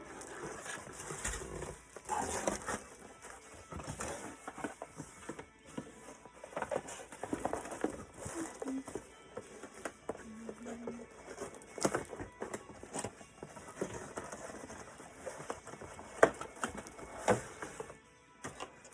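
Packaging being handled: rustling with frequent light clicks and knocks as accessories are taken out of a box.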